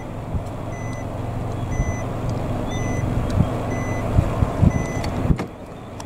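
A reversing vehicle's backup alarm beeping about once a second over a steady low engine rumble. The beeping and rumble cut off suddenly near the end.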